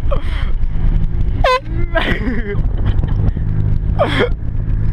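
Car driving, with a steady engine and road rumble inside the cabin. Over it come a few brief yelps: a quick high squeal about one and a half seconds in and a falling shout near the end.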